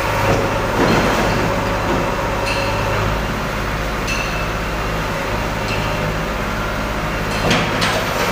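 Steady din of heavy diesel machinery running inside a tunnel under construction, with a constant low hum underneath; a backhoe loader is working close by.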